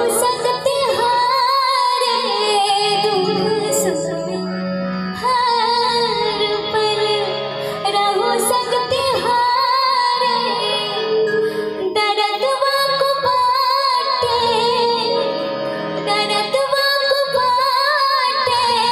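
A woman's voice singing a Hindi folk-style love song, with long held, wavering notes and short breaks between phrases.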